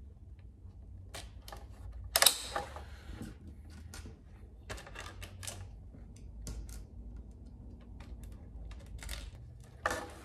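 Small clicks and rattles of molded plastic fender parts and small M3 screws, washers and nuts being handled and fitted together by hand, with a louder clatter about two seconds in and another near the end.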